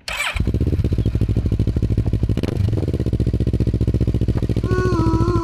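Motorcycle engine idling close to its exhaust muffler, a steady, rapid, even train of exhaust pulses.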